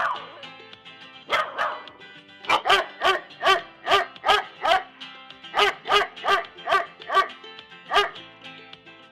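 A dog barking: a drawn-out yelp at the start, then two quick runs of sharp barks, about four a second, and one last bark near the end. Background music plays underneath.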